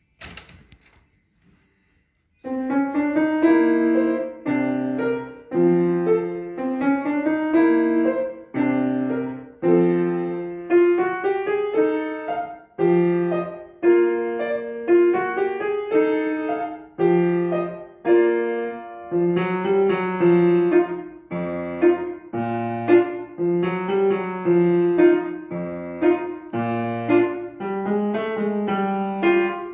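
A short knock at the very start, then a piano begins a classical piece about two seconds in, playing melody over chords in short phrases, each note ringing and dying away.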